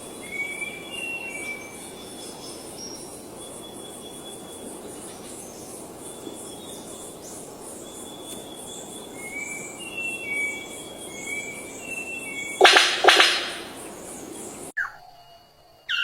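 Birds calling in short, repeated whistled notes over a steady background of insects buzzing. Two loud, harsh bursts come near the end, and then the sound cuts off abruptly to something quieter.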